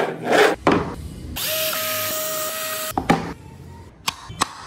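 Woodworking sounds: a few loud rasping strokes, then a small power tool runs steadily with a whine for about a second and a half and stops. A few sharp wooden clicks follow as carved wooden parts are fitted together.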